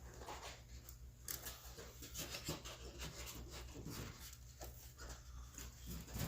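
Faint rubbing and light tapping of a plastic door panel and its trim being handled and pressed into place on a car door, over a steady low hum.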